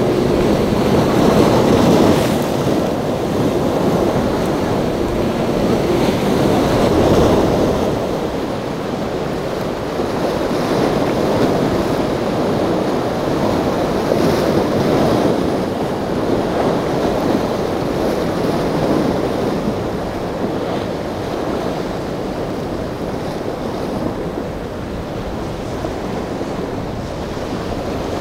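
Rough surf breaking and churning in an inlet, with wind buffeting the microphone. Louder for the first several seconds, then easing a little.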